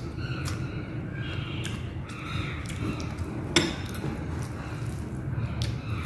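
Close-up eating sounds: chewing with scattered small clicks and clinks of utensils on a plate, and one sharper clink about three and a half seconds in.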